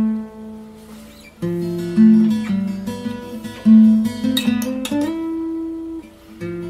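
Instrumental guitar music playing as a show's intro theme, with new chords struck every second or so.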